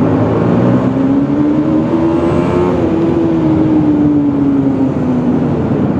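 Motorcycle engine pulling in a road tunnel: its note rises for about two and a half seconds, then falls back over the next three as the throttle eases, over a steady rush of wind and road noise.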